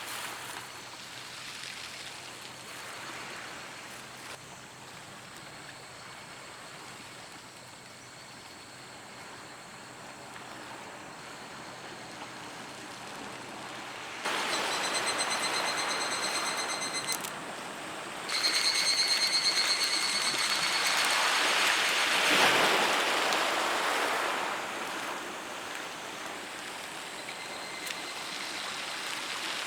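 Waves washing onto a beach, swelling and ebbing. Twice, about halfway through, a high, finely pulsing buzz cuts in for about three seconds and stops abruptly.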